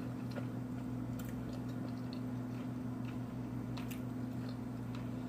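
A person chewing a mouthful of food close to the microphone: faint soft, wet mouth sounds and small clicks over a steady low hum.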